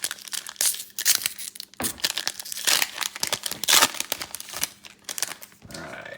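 Plastic wrapping crinkling and tearing in irregular bursts as a trading-card box or its packs are torn open.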